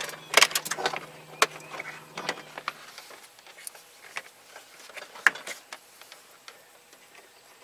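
Plastic interior door trim panel of a pickup truck being handled and set back onto the door: scattered clicks and light knocks of plastic against the door. A few sharper clicks come in the first second and a half and another about five seconds in.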